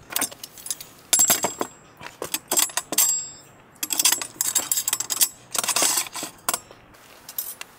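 Small metal hardware (nuts, washers and bolts) clinking and clattering against each other and the aluminium rails of a chainsaw mill as the parts are picked up and fitted. The clinks come in several quick clusters, a few with a brief metallic ring.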